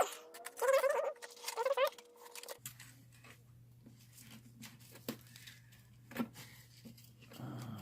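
Lock pick and tension wrench working in a padlock's keyway: scattered light clicks and scratches of metal on the pins, with a sharp click right at the start.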